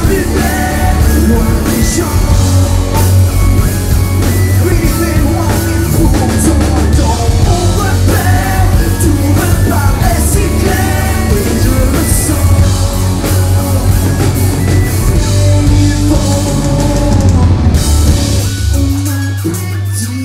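Rock band playing live at concert volume, heard from among the audience: heavy drums and bass, guitars, and a male singer.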